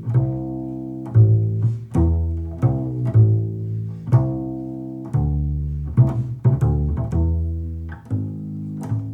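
Recorded music played back through a 5881/6L6GB push-pull tube amplifier: a solo plucked double bass line, its notes starting sharply and then dying away.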